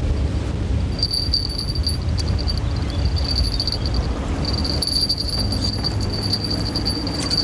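Spinning reel's drag whining as a big wels catfish takes line, in runs of a second or more that stop and start again, over a steady low rumble of wind and river.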